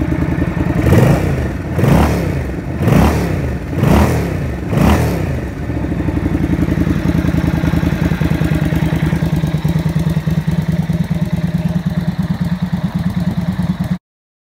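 Sachs Roadster 800's 800cc water-cooled V-twin engine, fitted with custom pea-shooter style exhausts, revved five times in quick succession about a second apart, then settling to a steady idle. The sound cuts off suddenly near the end.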